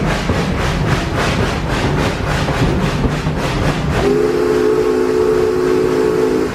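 Ride train running with a rhythmic clatter of about four beats a second. About four seconds in, its whistle blows a chord of several tones for about two and a half seconds.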